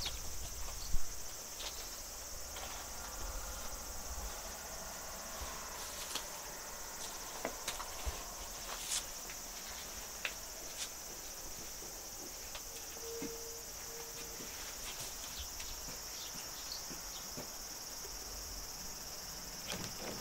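Steady high-pitched chorus of insects, with scattered faint clicks and one loud knock about a second in.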